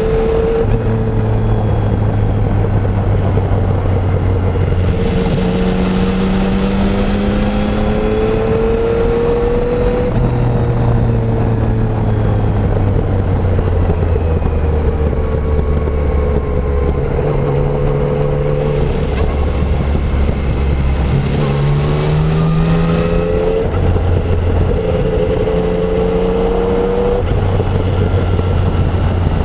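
Yamaha Tracer 900's 847 cc inline-three engine through its stock exhaust, heard from the rider's seat while under way. The engine note rises repeatedly under acceleration and drops back at each gear change or roll-off, over steady wind rush.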